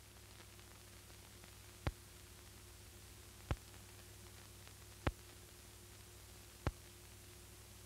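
Faint hiss and low hum from a silent stretch of old film soundtrack, with four sharp clicks evenly spaced about a second and a half apart.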